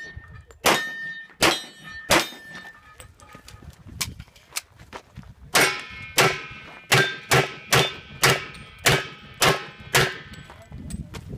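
A Glock 34 9mm pistol firing a string of shots at steel targets, most shots followed by the ringing clang of a hit steel plate. The first few shots are spaced out, and from about halfway the shots come faster, roughly two a second.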